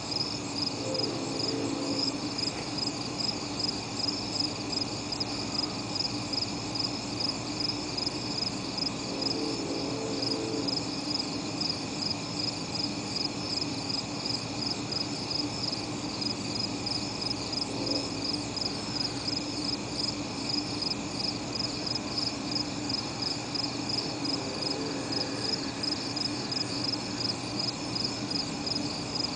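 A steady, rhythmically pulsing chorus of night insects, high-pitched, with a low steady hum beneath it.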